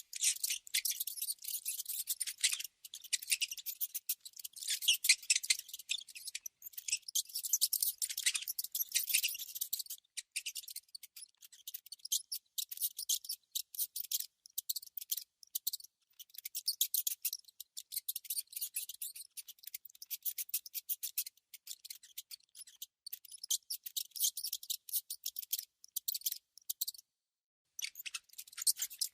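Mouse sound: a dense, rapid run of high-pitched scratching and clicking, with a brief pause near the end.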